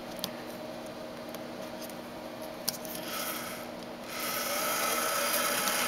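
Small clicks and rubbing as jumper wires are moved on a solderless breadboard. About four seconds in, a small DC motor driven through a transistor H-bridge starts up and runs with a steady high whine, now turning the opposite way after Q2 and Q3 are switched on.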